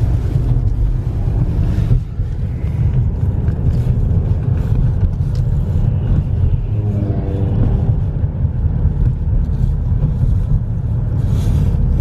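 Steady low rumble of road and engine noise inside a moving car's cabin. A short pitched hum joins in about seven seconds in.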